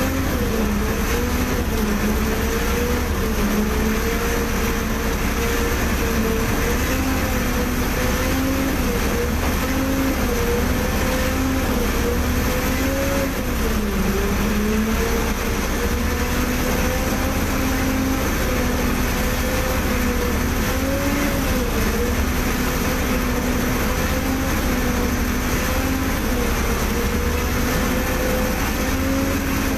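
A crane's diesel engine running steadily, heard from inside the operator's cab, its pitch wavering and dipping a little as the operator works the control levers.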